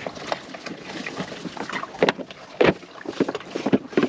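Irregular knocks and clicks of a sailboat's deck hardware and rigging being handled, over a steady hiss of wind and water.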